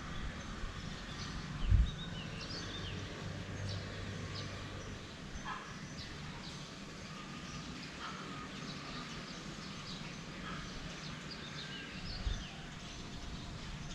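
Birds chirping in short, scattered calls over a steady background hiss, with a dull low thump about two seconds in and another near the end.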